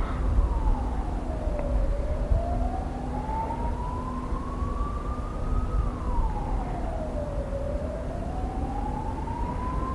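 Emergency-vehicle siren wailing: a single tone sliding down and then slowly back up, about one cycle every six seconds, over steady low rumbling noise.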